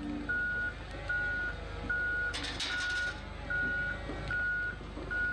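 Reversing alarm on heavy quarry machinery, one steady-pitched beep repeating about every 0.8 seconds, over a low vehicle rumble. A brief clatter about halfway through.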